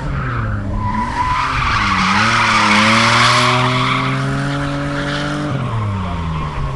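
A car drifting: its engine is held at high revs while the tyres squeal in a long slide. The squeal is loudest in the first few seconds. The engine note dips, climbs steadily, then falls away suddenly about five and a half seconds in.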